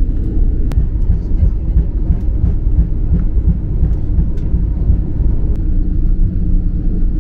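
Cabin noise of an Airbus A321neo rolling out on the runway after touchdown: a loud, steady low rumble of the wheels and engines, with a few faint rattles.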